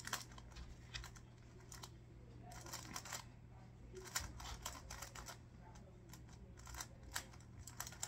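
Magnetic Rubik's cube being turned fast in the hands during a speed-solve: runs of quick, irregular plastic clicks as the layers turn and snap into place.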